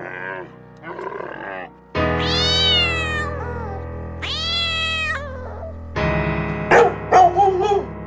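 Two short rough camel calls, then a domestic cat giving two long meows that fall in pitch, then a dog letting out a few short barks near the end, over background music.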